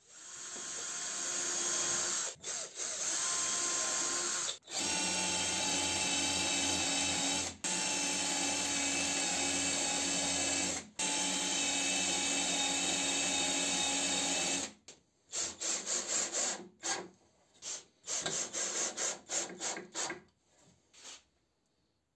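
Cordless drill running in long steady pulls with a few short pauses, then many quick trigger blips near the end.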